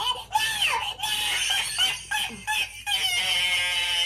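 A person's wordless shocked vocal reaction: a run of squeals and shrieks that ends in one long, high-pitched held cry.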